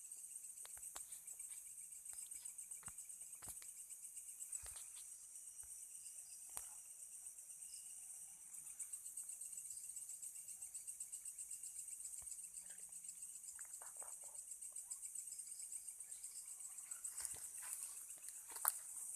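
Insects trilling: a high, rapidly pulsing chorus, with a second, lower trill in the first half. Scattered faint clicks and rustles, with a sharp click near the end.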